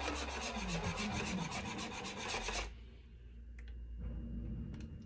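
Wire whisk beating a liquid gelatin mixture in a plastic bowl: rapid, rhythmic scraping strokes that stop suddenly a little past halfway, followed by a few faint clicks.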